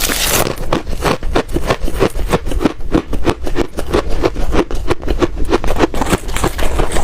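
Ice being crunched between the teeth, close to the microphone: rapid, continuous crunching, several bites a second.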